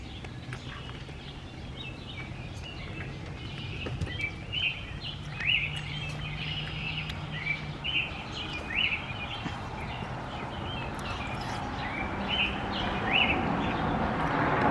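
Small birds chirping outdoors, short hooked calls repeated every second or so, over a low steady hum. A rushing noise builds up over the last few seconds.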